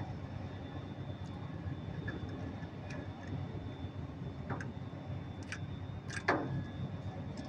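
A few light clicks and a short scrape from hands working a wiring-harness joint with a small cutter, the loudest a sharp click with a brief falling scrape a little after six seconds, over a steady low background rumble.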